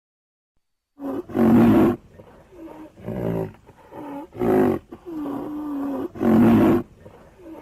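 Designed creature roars for a black rhinoceros, mixed from rhinoceros, triceratops and bull recordings. After about a second of silence come four loud bellowing roars, with short grunts and one drawn-out moan between them.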